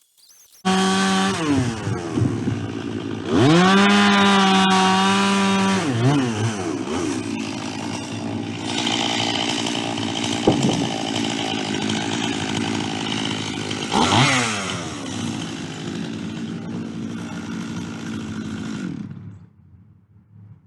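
Gasoline chainsaw on a chainsaw mill ripping a white pine log. It revs up to full speed about three seconds in and drops lower a few seconds later, then runs under the load of the cut with a brief rev near the end. It stops about a second and a half before the end.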